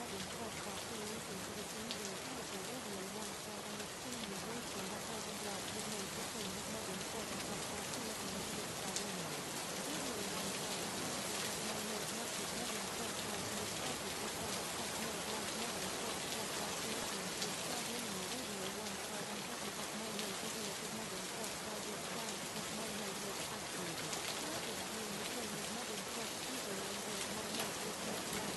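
Steady rain: an even hiss of falling rain that does not change. A faint voice runs low beneath it.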